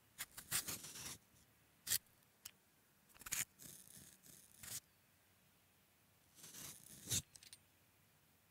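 Vegetable peeler shaving the skin off a raw potato: short rasping scrapes in several bursts, with pauses between them.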